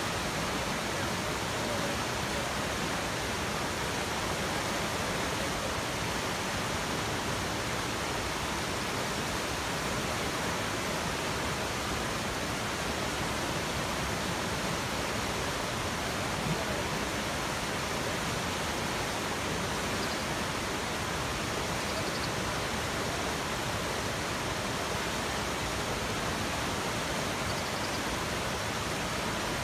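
Whitewater rapids rushing steadily.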